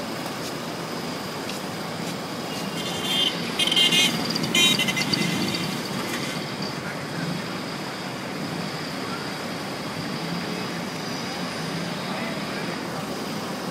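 Steady street traffic noise with some voices, with a few short high-pitched blasts about three to five seconds in.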